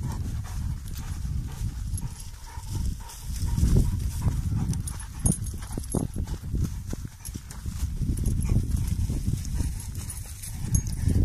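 Low wind rumble on the microphone, with scattered thuds of footsteps on a dirt track, most of them in the middle of the stretch.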